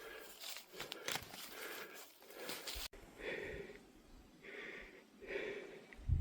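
Scattered clicks and scuffs, then from about halfway through a person breathing hard in rhythmic puffs, about one a second, as when climbing a steep trail.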